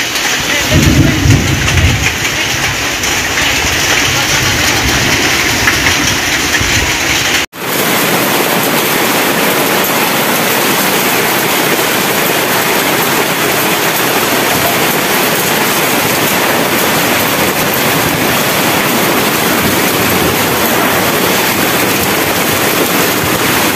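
Hailstorm: hail and heavy rain pelting the ground and hard surfaces, a loud, dense, steady noise. It breaks off for an instant about seven and a half seconds in, then goes on as before.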